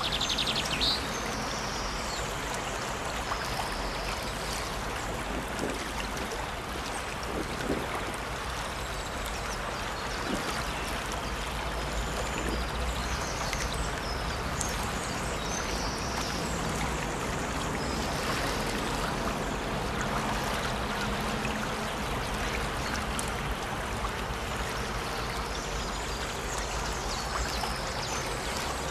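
Small brook splashing and trickling steadily, with birds chirping now and then.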